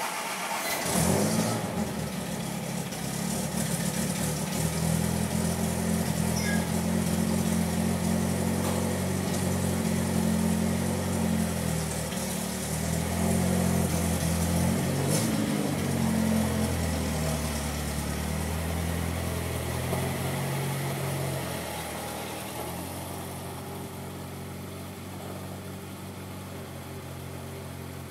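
Austin-Healey Sprite 1098 cc A-series four-cylinder engine with an SU carburettor, in a 1959 Morris Minor, running just after a cold start after sitting for over a week. It idles high and a little unevenly, then settles to a lower, quieter idle about 22 seconds in.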